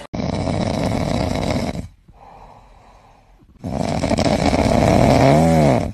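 A sleeping dog snoring: two long, loud snores with a quiet breath between them. The second snore ends in a short rising-and-falling whistle.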